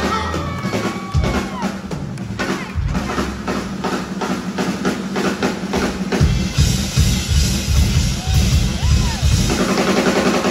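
Live band playing, with a drum-kit beat to the fore; the bass and kick drum fill out about six seconds in.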